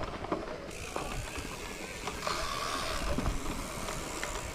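Bicycle riding noise: a steady low rumble of tyres and wind on the microphone, with a few light mechanical clicks.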